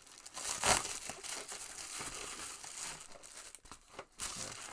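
Shipping package crinkling and tearing as it is ripped open by hand, loudest about a second in, with another burst of crinkling near the end.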